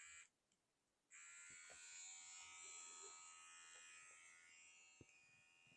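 Manscaped Lawn Mower 4.0 electric body-hair trimmer running with a faint, steady high whine. It starts about a second in and fades out before a single click near the end.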